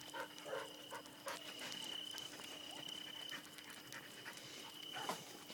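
Faint sounds of a dog: a few short noises near the start, one about a second in and another about five seconds in, over a steady thin high tone.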